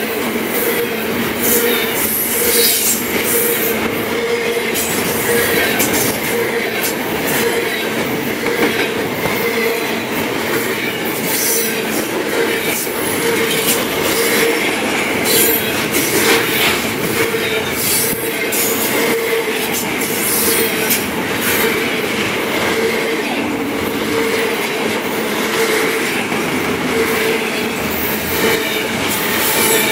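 Freight train cars rolling past close by: a steady loud rumble and rattle of wheels on the rails, with a held squeal and irregular clanks and clicks throughout.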